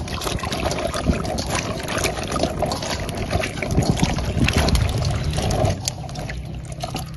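Hands washing a basin of earthstar mushrooms in a stainless steel bowl: water sloshing and splashing, with many small clicks and knocks as the hard round mushrooms rub against each other and the metal.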